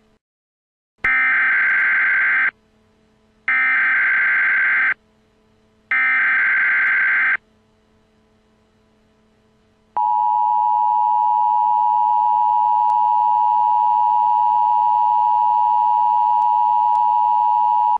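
Emergency Alert System broadcast signal: three bursts of SAME header data tones, each about a second and a half long and a second apart. Then, about ten seconds in, the steady two-tone EAS attention signal begins and holds.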